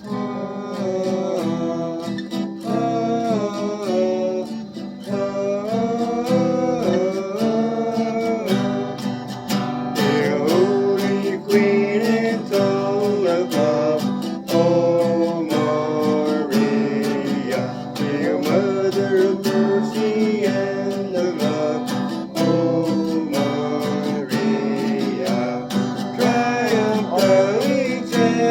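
Acoustic guitar strummed in a steady rhythm, accompanying a voice singing a hymn. Both start together at the very beginning.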